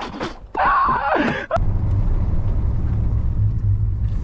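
A short voice-like call, then about a second and a half in a steady low rumble starts abruptly: a Nissan Titan pickup's V8 running, heard from inside the cab.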